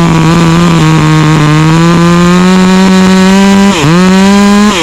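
Two-stroke chainsaw running at high revs, its pitch held steady and creeping slightly upward, then dropping sharply about four seconds in and picking straight back up.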